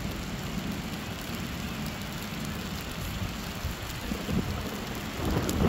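Steady rain hiss during a thunderstorm. About five seconds in, a low roll of thunder starts to swell.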